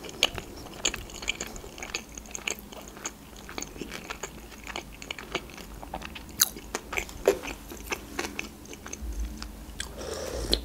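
Close-miked chewing of sushi rolls: irregular wet mouth clicks and crunches. Near the end comes a short slurp from a spoonful of lentil soup.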